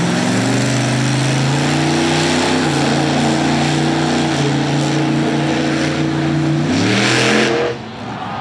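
Monster truck engine revving hard, its pitch climbing in steps and holding between throttle blips. Near the end it rises sharply at full throttle, then cuts off abruptly.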